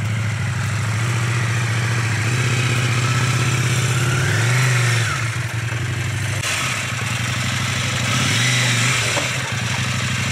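A vehicle engine idling steadily, its pitch briefly rising and falling twice, about four and a half and eight and a half seconds in.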